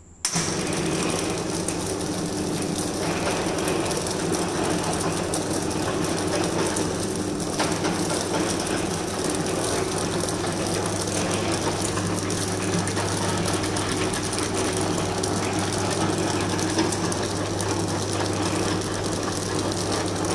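Automatic form-fill-seal pouch packing machine running, a dense steady mechanical noise over a constant low hum. It starts abruptly just after the beginning.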